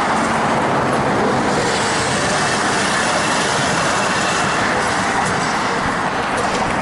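Steady, loud noise of heavy road traffic.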